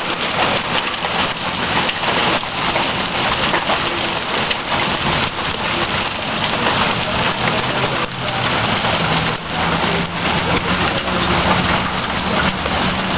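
Heavy downpour mixed with small hail, a steady rush of rain with many sharp pellet clicks striking hard surfaces.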